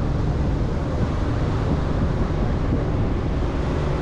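Chevrolet Colorado ZR2 Bison pickup driving slowly over soft beach sand: a steady low engine drone and tyre noise, with wind rumbling on the microphone.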